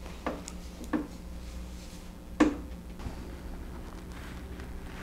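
A card and pen handled on a wooden tabletop: a few light knocks, the sharpest about two and a half seconds in, then the faint scratching of a pen writing on paper.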